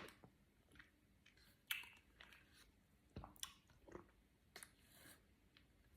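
Faint chewing: irregular soft mouth clicks and smacks of a person eating breakfast food.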